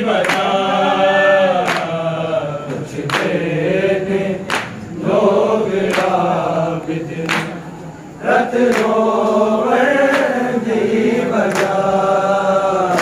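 Group of men chanting a Punjabi noha in unison, several voices on a slow melodic line. A sharp slap lands about every second and a half, hands striking chests in matam to keep the beat.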